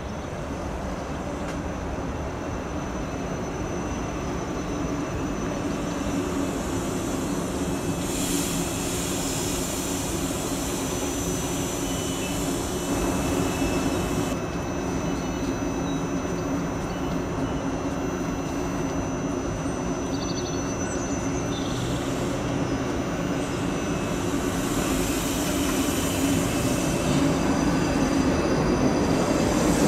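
South Western Railway Class 458 Juniper electric multiple unit at the platform, a steady hum with a few even tones that grows louder toward the end as the train moves off past. There are a couple of spells of hiss along the way.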